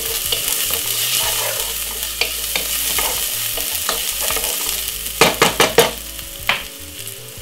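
Sliced white onion and chopped garlic sizzling in oil in a pot while being stirred with a wooden spoon. A little after five seconds in comes a quick run of four or five sharp knocks, the spoon against the pot, with one more about a second later, and the sizzle grows quieter toward the end.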